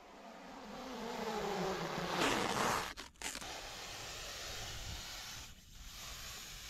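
Plastic stretch wrap being pulled off its roll: a buzzing whine that swells louder, breaks off about three seconds in, then goes on as a steadier hiss while more film unrolls.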